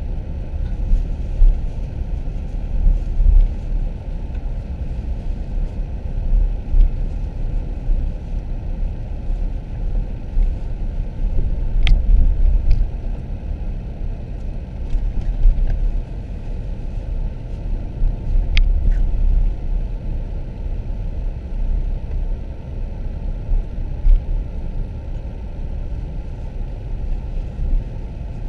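Low, uneven rumble of a car heard from inside its cabin, with two sharp clicks, about 12 and 18.5 seconds in.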